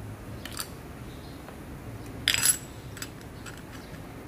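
Steel plates and drum of an automatic transmission's 3-4 clutch pack clinking as they are handled and fitted together: a few light metal clicks and one louder ringing clink about two seconds in.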